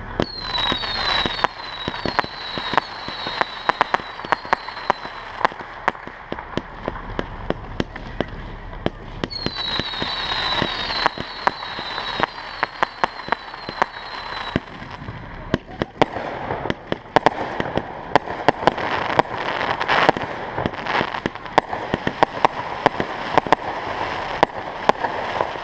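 Fireworks going off in quick succession: rapid pops, cracks and crackling from small aerial shells and ground-fired effects. Twice, for several seconds at a time, a run of short high falling whistles repeats over the popping.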